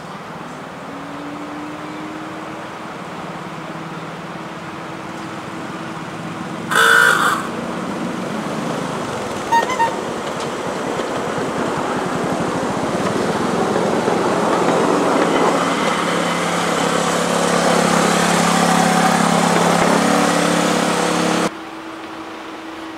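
Battery-electric 7¼-inch gauge miniature locomotives running on the track with a steady motor hum. A short horn toot sounds about seven seconds in and two quick beeps follow near ten seconds. A locomotive then passes close, its wheels rumbling louder on the rails before the sound cuts off.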